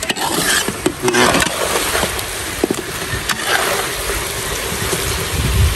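Hot Coca-Cola glaze sizzling in a wok with a steady hiss, while a wire spider strainer and a metal ladle clink and scrape against the wok as the fried chicken wings are scooped out. A low rumble comes near the end.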